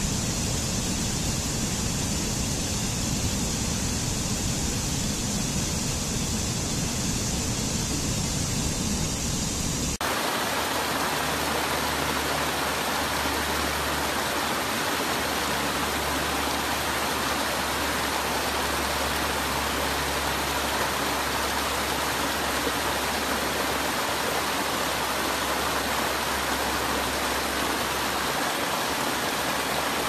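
Rushing water of a mountain stream cascading over boulders, a steady rush. About ten seconds in it changes abruptly to the fuller rush of a stream tumbling over low rock ledges, steady until the end.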